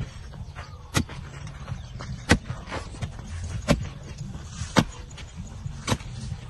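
Metal hoe blade chopping down into red earth, five sharp strikes about one every 1.2 seconds, over a steady low rumble.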